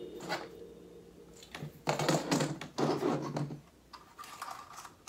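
Clicks and rustling of small hard plastic drone parts being handled and fitted, in two short spells about two and three seconds in.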